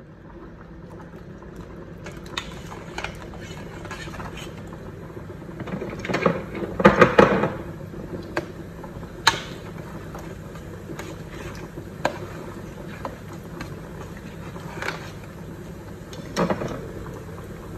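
Hot oil sizzling as drops of gram-flour batter fall into it and fry, with a spoon scraping and clinking against a steel dish, loudest about six to eight seconds in.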